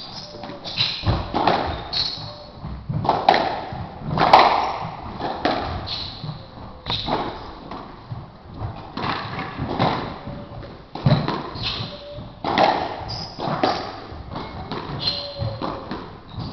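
Squash rally: the ball struck by rackets and smacking off the front and side walls in irregular hard knocks, roughly one or two a second, with sneakers squeaking briefly on the wooden court floor.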